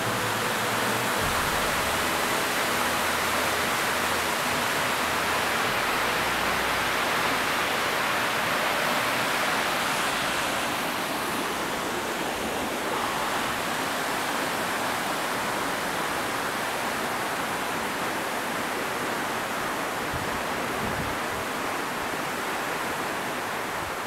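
Steady rushing of a waterfall, water falling about 18 m over a travertine limestone cliff, easing slightly about halfway through.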